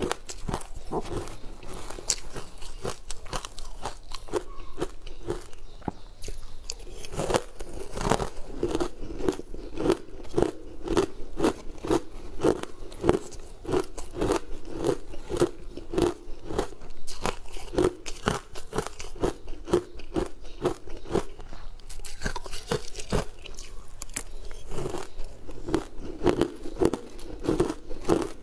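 Close-miked crunching and chewing of crushed green ice: dense crackling crunches in a steady chewing rhythm of about two chews a second.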